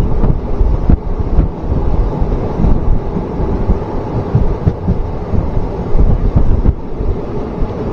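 Wind buffeting the microphone at the open door of a moving passenger train, over the running rumble of the coach on the track. The noise is loud and gusty throughout.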